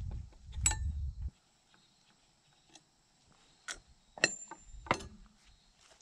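Handling rumble, then three sharp metallic clinks of hand tools and metal parts on a propane regulator bracket, one ringing briefly.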